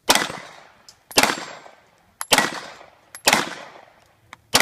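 Glock pistol firing a string of five shots about a second apart, each crack trailing off in an echo.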